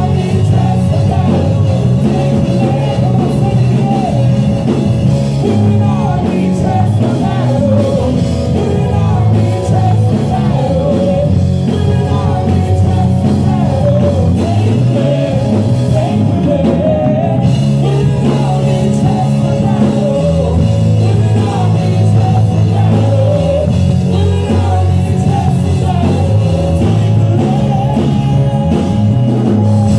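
Loud rock music with singing, running without a break.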